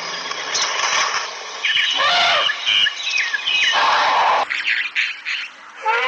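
Birds chirping and calling densely in the trees. The sound drops abruptly about two-thirds of the way through, and a short arching call comes near the end.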